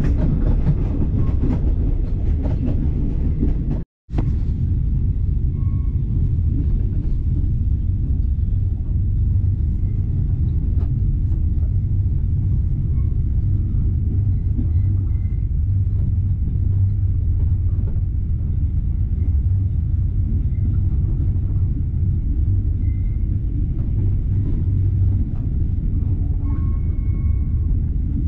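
Steady low rumble of a moving express train carriage running along the track. The sound drops out completely for a moment about four seconds in.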